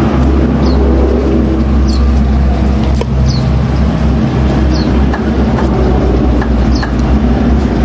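Steady low rumble of a running motor, with short high falling chirps every second or so and one sharp click about three seconds in.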